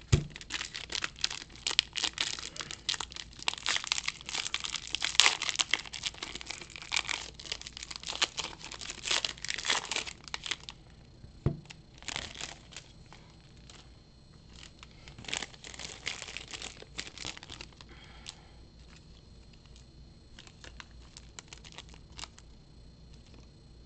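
A plastic trading-card pack wrapper being torn open and crinkled: dense crackling for about the first ten seconds, then sparser crinkles and clicks that thin out to faint handling noise near the end.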